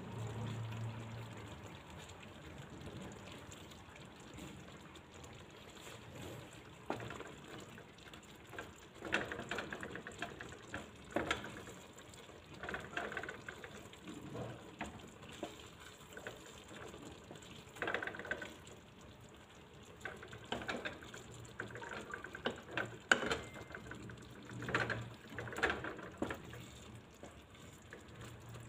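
Chicken breasts in a cream sauce bubbling in a nonstick frying pan. From partway through, a wooden spatula stirs and scrapes through the thick sauce in irregular wet strokes and taps against the pan.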